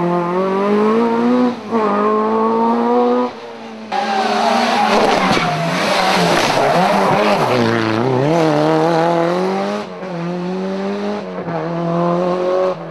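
Rally car engine revving hard, its pitch climbing and dropping with throttle and gear changes. In the middle stretch, about four to ten seconds in, a loud rushing noise swamps the engine.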